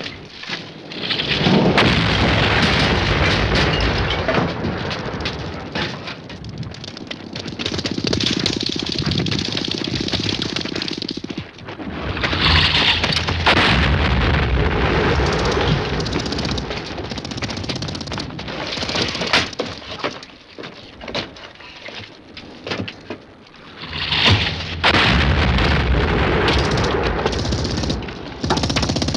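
Artillery shells exploding in a battle, with long rumbling, crackling roars and sharp cracks. They come in three heavy spells, with a quieter lull around twenty seconds in.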